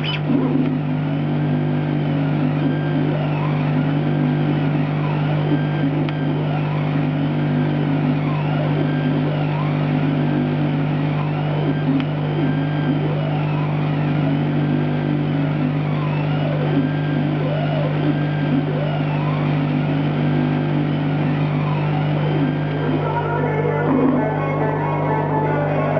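Ambient electronic background music: a steady low drone with a rising-and-falling sweep repeating about every two seconds, changing to a busier texture near the end.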